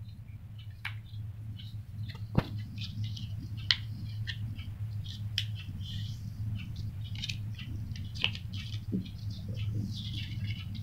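Paper being handled and folded: rustling and crinkling with a few sharp taps, the loudest about two and a half seconds in, over a steady low hum.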